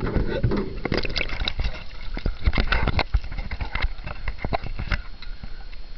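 Waterproof camera case tumbling inside a rotating tumble-washer drum: irregular knocks and rattles over a low steady rumble, thinning out near the end.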